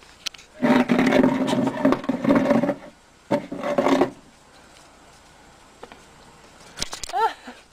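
Rough, pitched animal calls in two loud bouts, one about two seconds long and then a shorter one, followed by a brief high squeal near the end.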